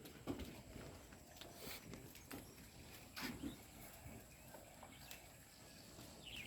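Faint farmyard ambience: scattered soft knocks and rustling, with a few short bird chirps near the end.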